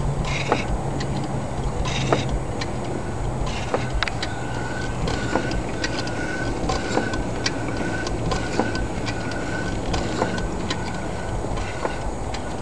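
1903 9 hp J.I. Case steam traction engine idling slowly on about 5 psi of steam, its running gear clicking and knocking in an uneven rhythm. From a few seconds in, a short squeak repeats about every three-quarters of a second.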